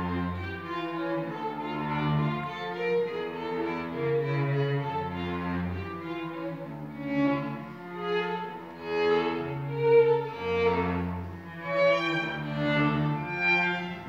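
An octet of four clarinets and a string quartet playing live: long held notes in several voices over a low line that enters and drops out every few seconds.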